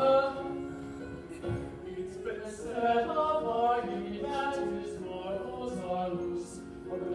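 Several voices singing a song together in held, choir-like notes.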